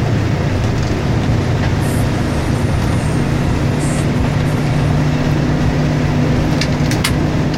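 Steady low drone of a bus's diesel engine and road noise, with a few short clicks near the end.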